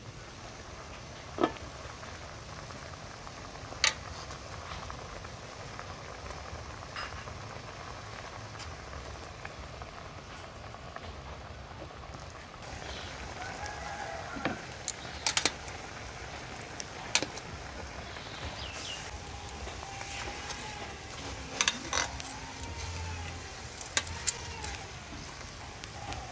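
A pot of braising liquid with a whole chicken, eggs and pak choi, bubbling steadily at a simmer, with a dozen or so short sharp clinks and knocks scattered through it, more of them in the second half.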